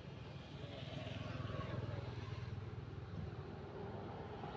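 Steady low drone of a running engine, swelling a little about a second in.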